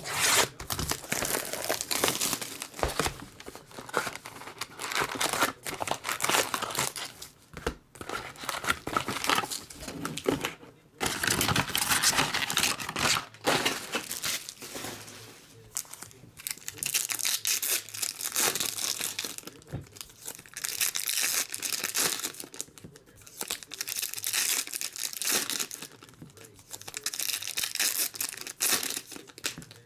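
Plastic shrink wrap being slit and peeled off a trading-card box and crumpled, then foil card packs torn open one after another, with their wrappers crinkling.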